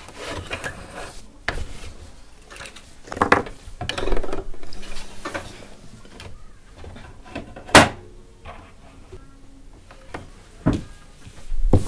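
Scattered knocks and clicks from hands handling a sewing machine and fabric at the needle plate, with one sharp click near eight seconds in.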